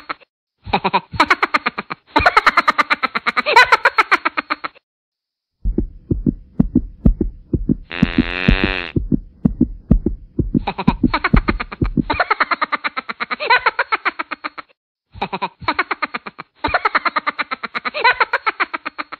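A cat licking: rapid, rhythmic wet smacks of the tongue, several a second, in bursts broken by short silences.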